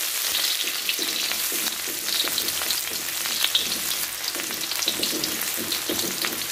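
Sliced garlic and shallots sizzling in hot oil in a metal wok, with a spatula scraping and tapping against the pan as they are stirred.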